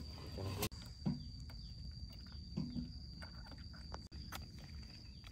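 Steady high-pitched insect song, typical of crickets in grass, with two short low grunts about a second and two and a half seconds in and a few faint clicks.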